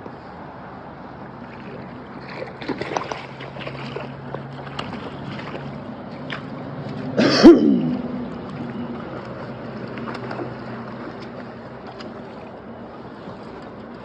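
Steady rush of river water, with scattered small clicks and one sudden, short, loud sound about halfway through.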